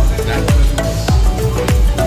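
Electronic background music with a steady kick-drum beat, about two beats a second, hi-hat ticks and a short repeating melody line.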